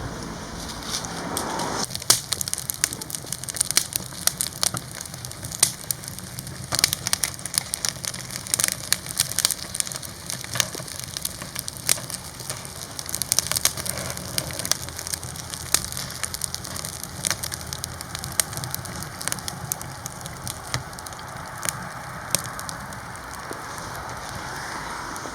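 Firewood burning in the firebox of a red-clay ondol heating room, crackling with many sharp, irregular pops over a low steady rumble.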